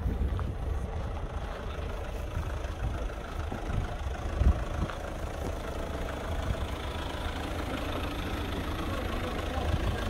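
Chevrolet Captiva (Daewoo Windstorm) SUV engine idling steadily, mixed with wind buffeting the microphone and a single sharp thump about four and a half seconds in.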